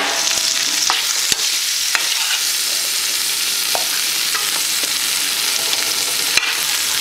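Chicken strips sizzling steadily in hot oil in a frying pan, with a few light clicks as a spoon scoops the pieces out.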